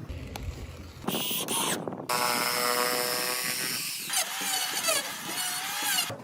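A power tool's motor giving a steady whine, then its pitch wavering up and down as it works, in short pieces that change abruptly.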